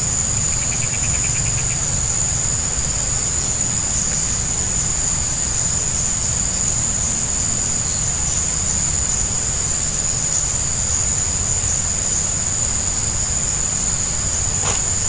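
Insects droning in one steady, high-pitched unbroken tone, over a low steady rumble. A short burst of rapid chirping comes about a second in.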